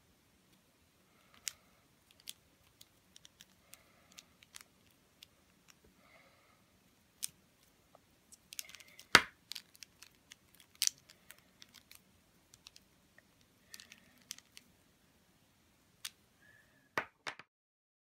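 Irregular clicks and crackles of a textured Tangle toy's plastic segments turning at their joints as it is twisted in the hands, with one sharp snap about nine seconds in. The clicking stops suddenly near the end.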